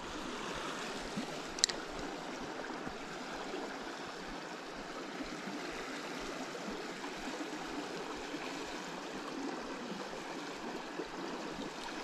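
Steady rushing of a river's current, with a single short, sharp click about one and a half seconds in.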